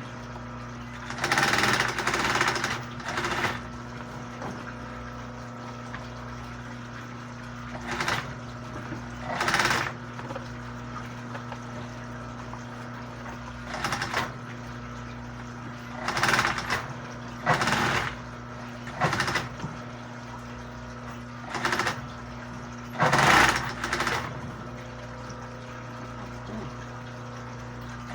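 Sewing machine stitching in short runs of one to three seconds, about ten times, with a steady motor hum underneath between runs.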